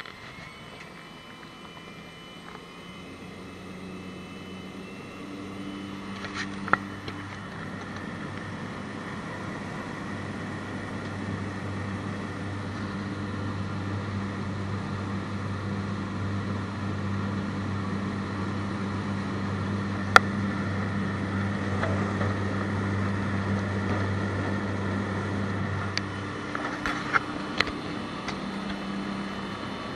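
Floatplane engine and propeller running steadily while the plane taxis on the water, heard from inside the cabin. The hum grows gradually louder over the first ten seconds or so, and its deepest part drops away near the end. There are a few short, sharp clicks.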